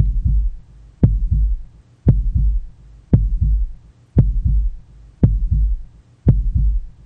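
Human heartbeat sound effect: a steady lub-dub, a deep double thump repeating about once a second, the first stroke of each pair sharper than the second.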